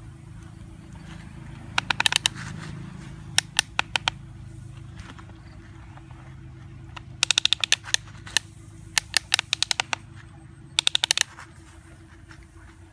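Plastic toy excavator's arm joints ratcheting as they are worked by hand to dig and dump sand, in several quick runs of sharp clicks. A steady low hum lies underneath.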